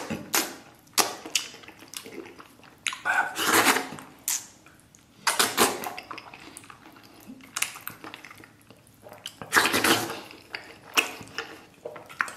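Wet slurping, smacking and chewing as a mouthful of braised tiger-skin pork knuckle with rice is bitten off and eaten. The sounds come in irregular bursts, loudest about a third of the way in and again near the end.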